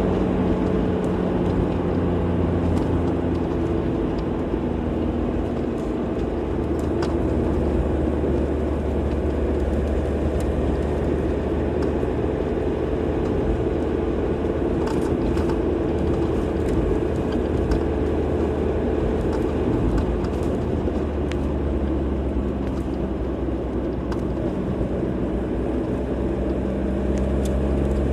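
Car driving at a steady speed: a continuous rumble of tyres on the road with a low engine hum that slowly drifts in pitch.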